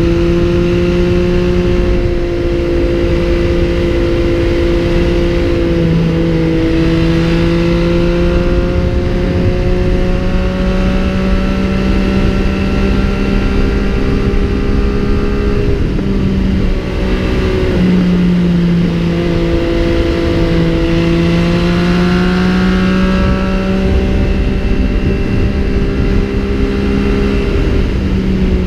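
MV Agusta Brutale 800's three-cylinder engine running under way on the road. Its note holds steady and climbs slowly, dipping briefly in pitch a few times before rising again.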